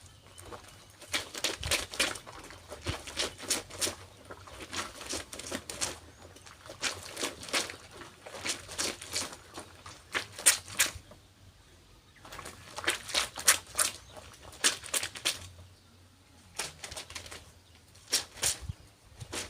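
Clothes being scrubbed by hand, fabric rubbed against fabric in quick strokes, in bursts of a few seconds with short pauses between them.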